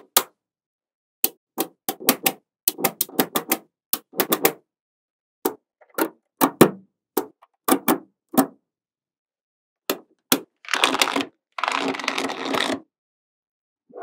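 Small magnetic balls clicking as they snap together: many sharp separate clicks at an irregular pace, then a couple of seconds of dense rattling about eleven seconds in as a group of balls shifts and settles.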